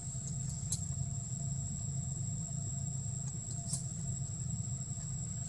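Steady low droning hum with a constant high-pitched whine above it, and two faint clicks, about a second in and near four seconds in.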